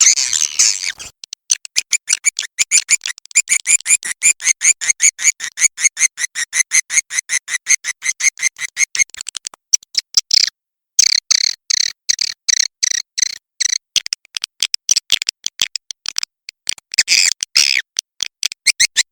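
Swiftlet call recording used as a lure: a fast, even run of short high chirps, several a second, with a brief break about halfway through.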